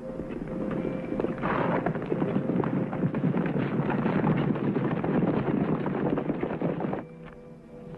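Hoofbeats of a band of horses ridden past at speed, a dense clatter that swells from about a second in and cuts off suddenly about a second before the end.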